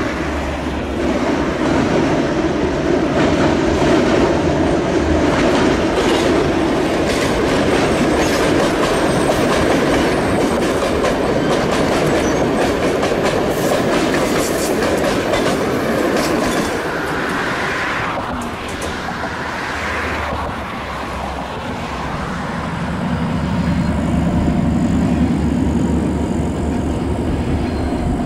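Ganz-MÁVAG D1 diesel multiple unit passing close by: its diesel engine running under the noise of the wheels, with a rapid clickety-clack of the wheels over rail joints in the middle as the cars go by. It then fades, and a lower engine drone builds near the end.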